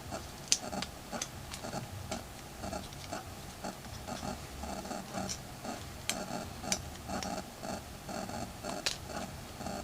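Faint, scattered clicks and taps of pliers on the small plastic and metal parts of a smartphone being taken apart, over a soft, fairly regular ticking.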